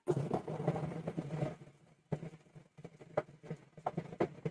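Food processor motor running, blending apple, banana and soaked dates into a runny paste. The motor is steady for about the first second and a half, then heard only in choppy fragments over the video call.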